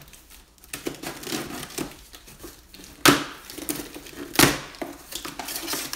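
Cardboard shipping box being torn open by hand: scratching and rustling of cardboard, with two loud sharp rips, about three seconds in and again a second and a half later.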